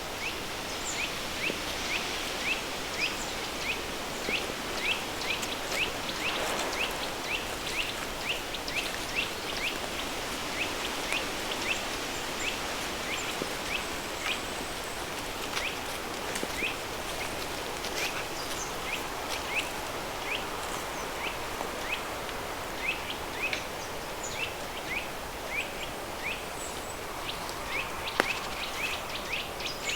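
River stream running with added pink noise as a steady hiss, while a bird repeats short, high, falling chirps about twice a second, with a few short gaps.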